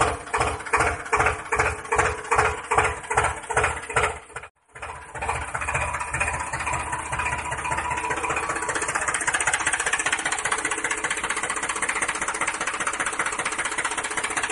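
Tractor engine chugging at a slow, even beat of about three to four pulses a second; after a brief break about four and a half seconds in, it carries on as a steadier, faster running sound.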